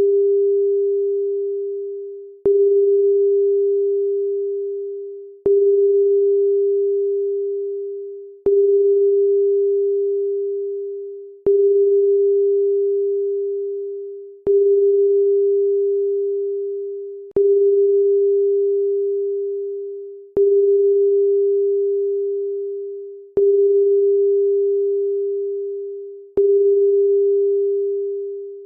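A loud, pure electronic tone a little under 400 Hz. It restarts with a click about every three seconds and fades away before each restart, about ten times in a row, then stops suddenly.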